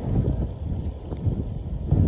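Strong sandstorm wind buffeting the microphone: an uneven low rumble of gusts that eases around the middle and swells again near the end.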